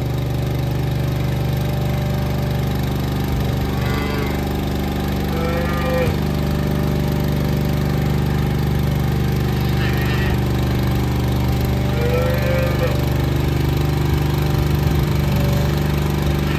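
An engine running steadily at an even speed, with several short livestock calls heard over it.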